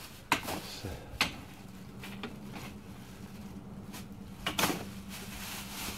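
A long pole prodding through garbage in a dumpster: plastic trash bags rustling, with sharp knocks about a third of a second in, a little over a second in and about four and a half seconds in.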